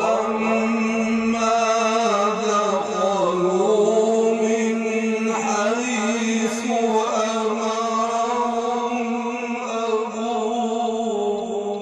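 A man reciting the Quran in a melodic chanted style. He holds one long phrase on drawn-out vowels, with the pitch gliding and turning in ornaments, and there is a short break about ten seconds in.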